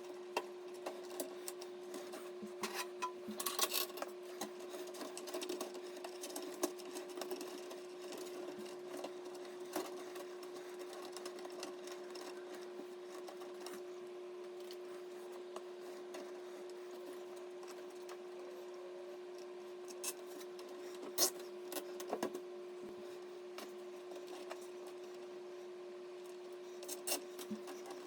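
A steady, even hum with scattered clicks and light taps of computer parts being handled, clustered a few seconds in, about two-thirds of the way through and near the end.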